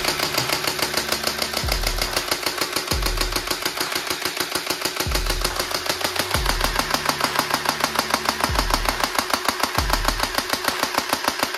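Rapid, unbroken automatic-gunfire sound effect, about a dozen shots a second, laid over background music with a deep bass note that comes in every second or two.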